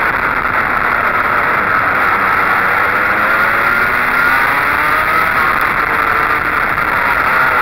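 Racing kart engine running at speed, heard on board, its pitch dipping and rising again as the kart slows for and powers out of the corners.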